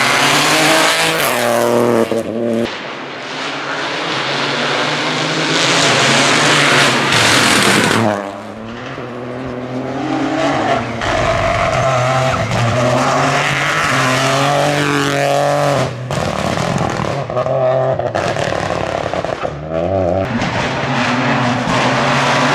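Opel Corsa Rally4 rally car's turbocharged three-cylinder engine at hard throttle on a series of passes, revving up and down through the gears. Each pass is cut off suddenly by the next.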